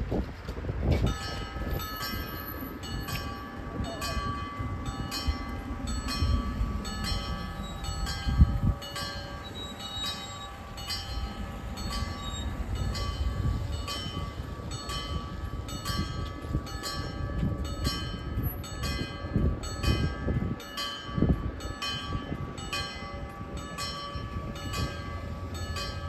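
Railway level crossing warning bells start ringing about a second in, a quick, evenly spaced electronic ding that keeps on without a break: the warning that a train is approaching and the barriers are about to lower. Cars pass over the crossing underneath.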